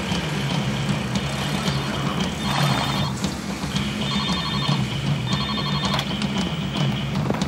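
A telephone ringing in three short trilling bursts over a steady low hum.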